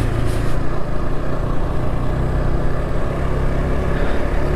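KTM RC 200 motorcycle's single-cylinder engine running steadily while riding, with wind noise over the microphone.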